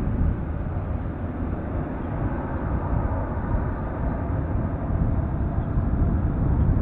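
Airbus A330's Rolls-Royce Trent 700 jet engines at takeoff thrust on the takeoff roll: a steady, deep rumble of jet noise that grows a little louder near the end as the aircraft nears rotation.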